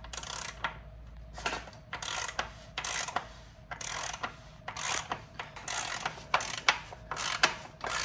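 A ratcheting tool clicking in short runs, about two a second, as a threaded bottom bracket cup is turned into a bike frame's bottom bracket shell.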